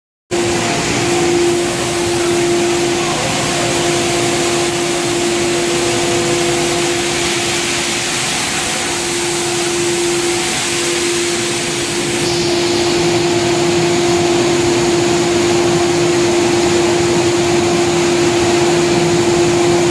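Automatic shot blasting machine running: a loud, steady hiss over a constant motor hum.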